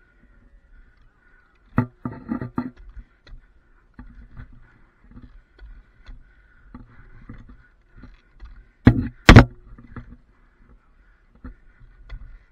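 A climber going up a wooden utility pole: irregular knocks and scrapes of boots and climbing gear against the wood, with the positioning rope's metal hardware clanking. A cluster of knocks comes about two seconds in, and two sharp, loud clacks come about nine seconds in.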